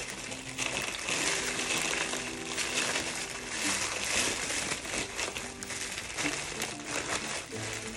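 Plastic parcel packaging crinkling and rustling continuously as it is handled and unwrapped.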